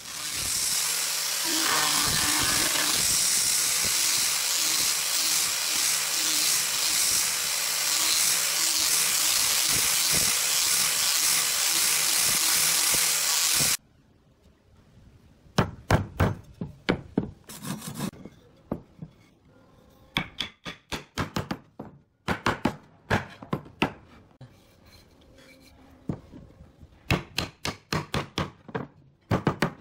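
A loud, steady power-tool noise runs for about fourteen seconds and cuts off suddenly. Bursts of sharp wooden knocks and taps follow as a wooden dowel is driven into a drilled hole in a pine board.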